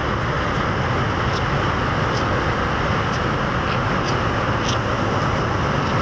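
Steady, loud rushing noise with a few short, high chirps scattered through it.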